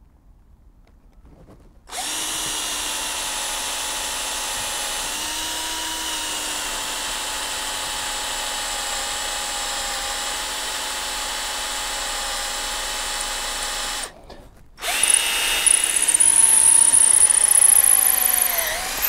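Cordless drill with a 5 mm wood bit boring through a wooden hatchet handle. The motor runs steadily for about twelve seconds, stops briefly, then starts again louder with a high squeal as the bit cuts. Near the end the motor slows for a moment under load.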